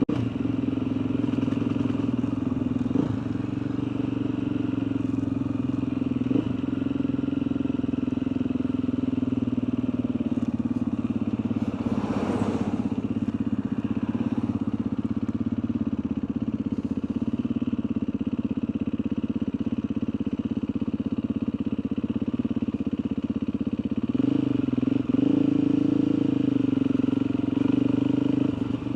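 Motorcycle engine running steadily as the bike is ridden, with a brief rushing sound about halfway through. About 24 seconds in the engine gets louder and a little higher as the rider accelerates.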